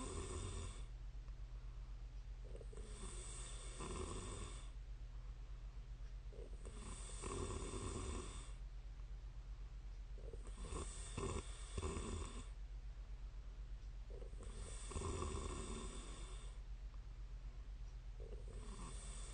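A woman snoring in her sleep: one long, noisy snore roughly every four seconds, with a steady low hum underneath.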